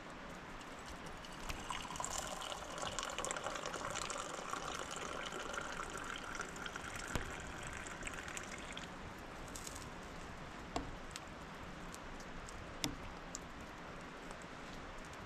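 Liquid poured into a container, starting about two seconds in and running for about seven seconds, its pitch rising steadily as the container fills. A few light knocks follow later.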